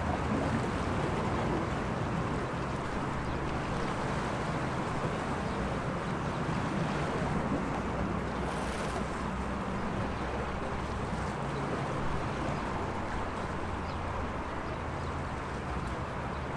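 Sea waves washing against the waterfront, a continuous wash of water with a steady low hum underneath.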